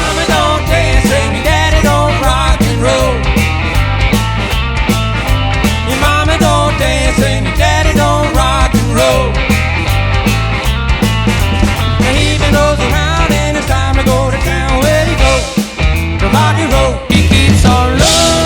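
A band playing rock music: drums keep a steady beat under a bass line, and a lead melody bends and wavers above them. The music dips briefly twice near the end.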